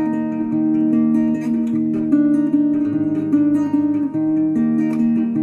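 Background music: a guitar playing a steady run of plucked notes and chords.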